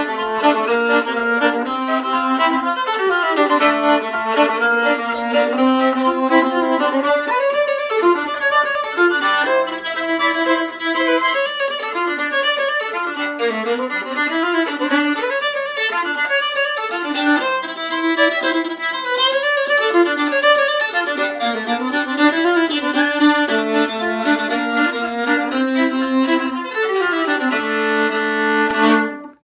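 Gayford Carbon 5-String Strad, a carbon-fibre five-string violin, bowed in one continuous tune of quick runs and held notes, amplified through a portable PA speaker. It ends on a held note that stops shortly before the end.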